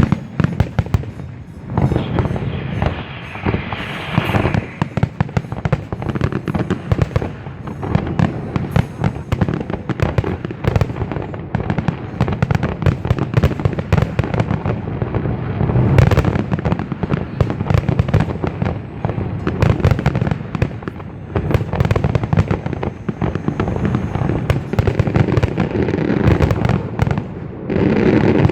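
Aerial fireworks barrage: many rapid, overlapping bangs and crackles with no break, and a hissing burst a few seconds in.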